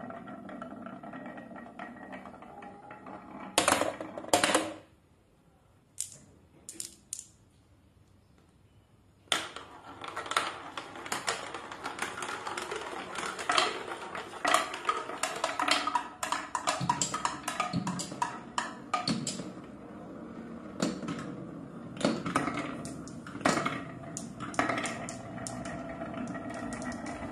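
Glass marbles rolling and clattering down a wooden wavy-groove HABA slope and plastic marble-run track: a steady rolling rumble with a few sharp clicks, a few seconds of near quiet, then from about nine seconds in many marbles rolling and knocking against each other in dense clicking.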